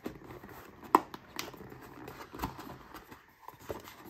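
Paper and cardboard packaging being handled: a folded instruction card rustling and scraping against a cardboard box, with a few sharp clicks and taps, the loudest about a second in.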